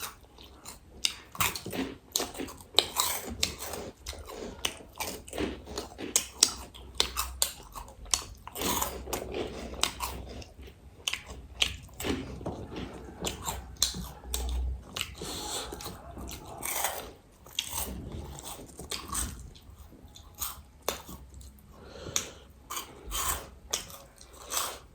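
Chewing and crunching crispy fried snacks, with many short, sharp crunches coming irregularly throughout.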